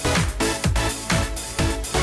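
Electronic dance background music with a steady kick-drum beat, about two beats a second.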